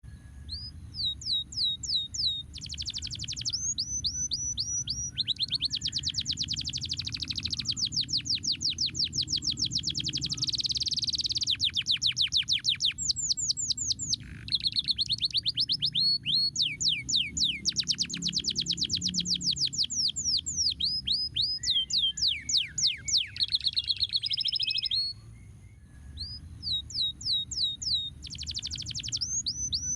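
Domestic canary singing a fast, continuous song of rapid trills of repeated downward-sweeping notes, with changes of phrase throughout and a short pause near the end.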